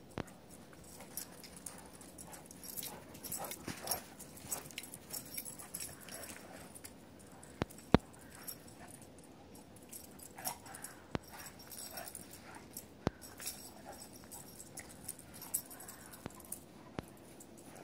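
Several dogs playing and wrestling in snow, with occasional short whines and yips over scattered light clicks and rustles. A single sharp click about eight seconds in.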